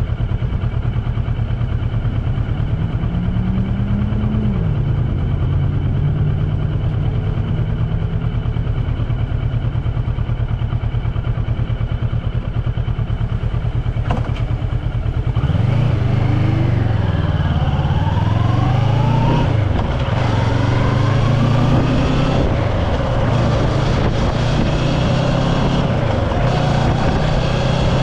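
A motor running steadily with a low drone, its pitch starting to rise and fall repeatedly about halfway through.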